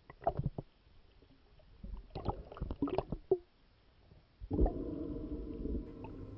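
Underwater recording of scattered clicks, knocks and gurgles of water. About four and a half seconds in, a steady sustained chord of background music comes in.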